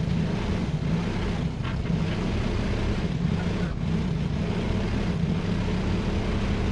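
A vehicle engine running steadily, with a strong low hum. It starts and cuts off abruptly.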